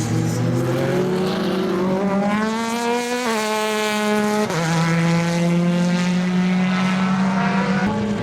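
GT race car engine at full throttle. It climbs in pitch for the first few seconds, drops sharply at an upshift about halfway through, then runs steadily at high revs.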